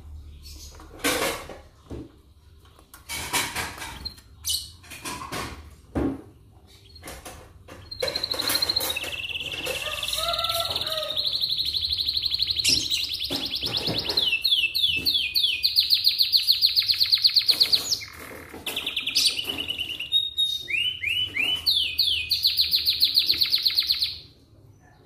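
Domestic canary singing: scattered short chirps at first, then a long song of fast trills and rolls of rapidly repeated high notes, which breaks off about a second before the end.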